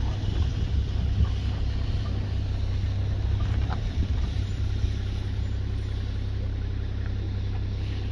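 Safari vehicle's engine running, a steady low rumble.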